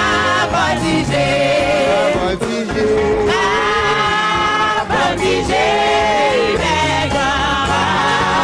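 Live gospel music: a man sings lead into a microphone over a church brass band and drums.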